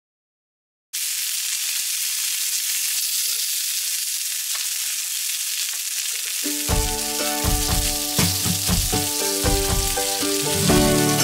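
Round white dough patties sizzling steadily in a cast-iron skillet on a portable gas stove, starting about a second in after a moment of silence. Background music with piano-like notes comes in about two-thirds of the way through, over the sizzle.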